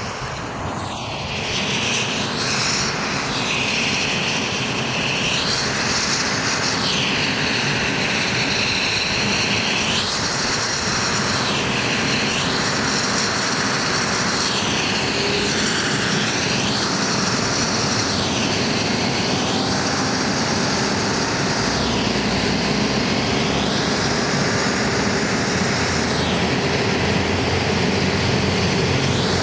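Eurocopter EC135 rescue helicopter running on the ground ahead of take-off: a steady turbine and rotor roar with a slow whooshing swell about every two seconds. The low rotor thrum grows stronger about two-thirds of the way through.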